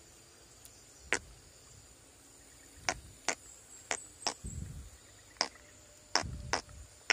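Irregular sharp clicks, about eight of them, some with a soft low thud, from a hand working a fishing line at the water-filled mouth of an eel burrow in mud.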